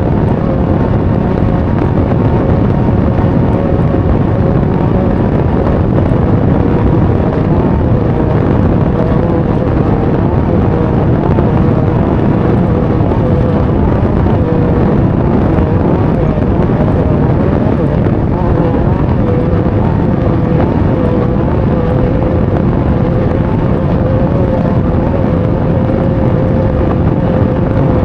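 Off-road race vehicle's engine running hard at fairly steady revs, heard from onboard, with wind noise on the microphone.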